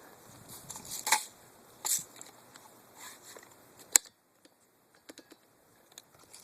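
A few short rustling crunches, like steps through dry brush, then one sharp click about four seconds in, after which it goes quieter with only small ticks.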